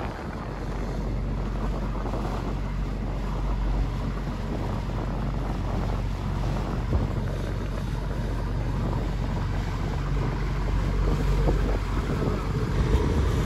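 Steady wind noise on the microphone over the low, even drone of a passing tourist cruise boat's engine.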